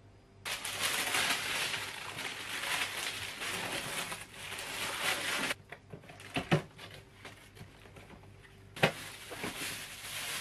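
Packaging being handled while a new mixer-grinder is unboxed: two long stretches of rustling and crinkling, with a few sharp knocks of the cardboard box and its contents between them.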